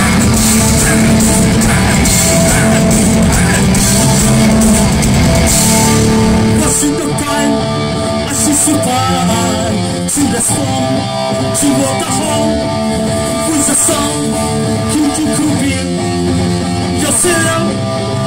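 A rock band playing live: distorted electric guitars through Marshall amplifiers, with bass and a drum kit. The full band is loud and dense for about the first six seconds, then it thins to a lighter passage of ringing guitar notes.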